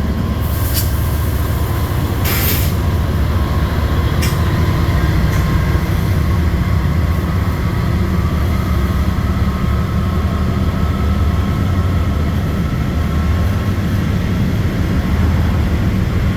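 CSX empty coal train rolling over a steel viaduct, with a steady heavy low rumble. Two short hisses of air come in the first three seconds, and a sharp click about four seconds in.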